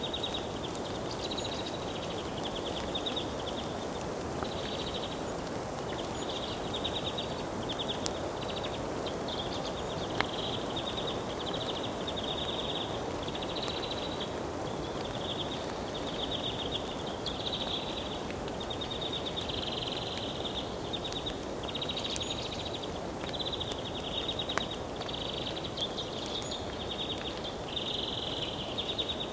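Outdoor nature ambience: a steady hiss under high-pitched chirping trills that come in short bursts about once a second, with a few faint clicks.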